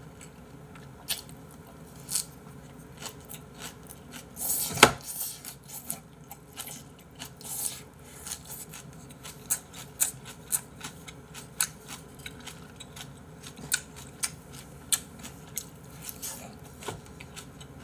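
A man eating close to the microphone: chewing a mouthful of rice and braised mackerel, with irregular small clicks and smacks and one louder knock about five seconds in.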